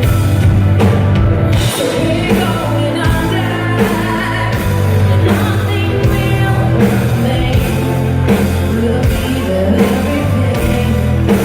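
A symphonic metal band playing live: a female lead voice sings over distorted guitars, bass and a steady drum beat, with the echo of a large hall.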